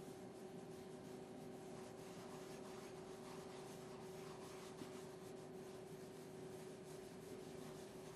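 Faint rubbing and scratching of dirt being worked into a polyurethane-reinforced floor covering, over a steady low hum.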